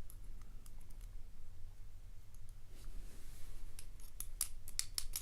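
Small sharp metallic clicks of tweezers and pins in a padlock being taken apart: a few scattered ticks, then a quick run of clicks near the end. A low steady electrical hum underneath.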